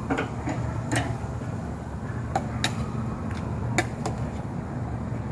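Metal tongs clinking against a small steel saucepan while chicken thighs are dipped in sauce: a handful of sharp, scattered clicks over a steady low hum.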